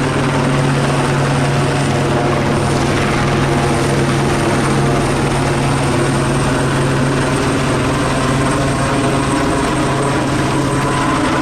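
Police helicopter overhead, its rotor and engine running loud and steady.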